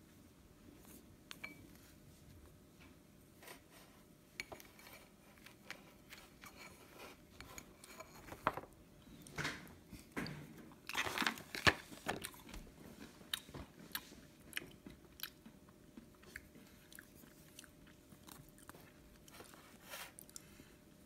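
Close-up chewing and crunching of roasted almonds in a mouthful of ice cream, with scattered crisp clicks and a louder, denser run of crunches about halfway through.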